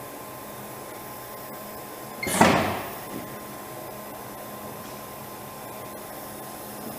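Teknek LCM 750 PCB contact-cleaning machine running with a steady hum. A single loud clunk, like a cover or door shutting, comes a little over two seconds in and rings briefly.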